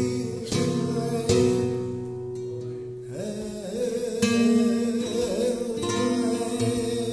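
Flamenco guitar playing por soleá, with sharp strummed chords in the first second and a half, and a male flamenco singer's voice over it holding long, bending notes.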